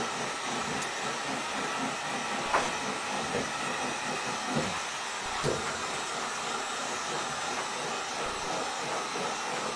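Handheld electric heat gun blowing steadily, warming vinyl wrap so it grabs the board, with a couple of faint light knocks.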